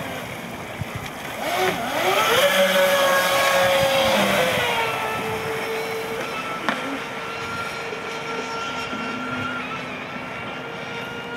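Leopard 4074 2150 kV brushless motor and propeller of a 33-inch fast electric RC boat running at speed, a high whine. The whine rises in pitch about two seconds in, is loudest for the next few seconds, and drops a little in pitch as the boat swings past. It then holds steady and quieter as the boat runs on.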